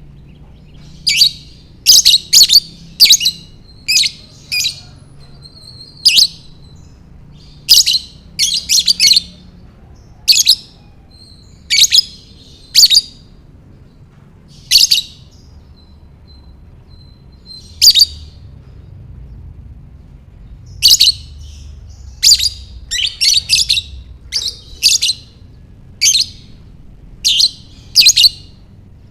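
Lovebird chirping: short, shrill, loud calls, some single and some in quick runs of three or four, with pauses of a few seconds between groups.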